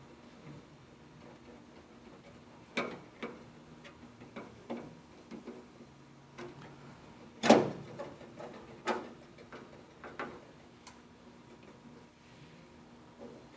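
Uneven sharp clicks and snaps from a clip removal tool prying the metal retaining clips of an old beltline weatherstrip out of a steel truck door. The loudest snap comes about halfway through, with a second strong one about a second and a half later.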